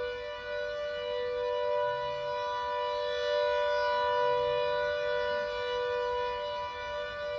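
Secomak CS8 warning siren sounding a steady two-note chord that holds its pitch without rising or falling: a routine monthly test of the Carstairs hospital sirens.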